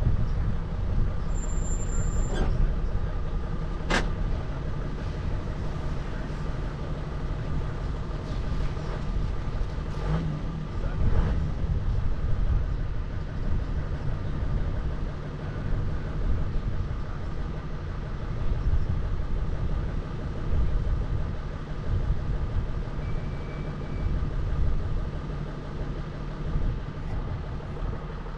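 A 4x4 vehicle driving: a steady low rumble of engine and tyres, with a sharp click about four seconds in.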